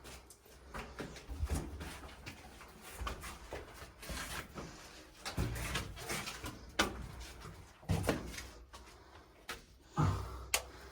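Irregular scuffs, knocks and rustles of someone clambering through a narrow cave passage, with scattered low thumps.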